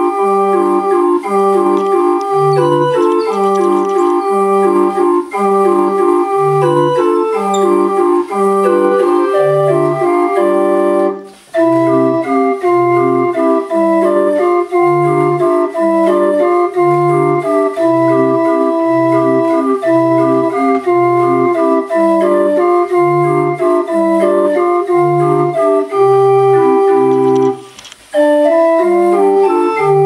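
Erman 27-key hand-cranked street organ (draaiorgel) playing a tune from folded cardboard book music, with a bass note about once a second under chords and a melody. The music breaks off briefly twice, about eleven seconds in and again near the end.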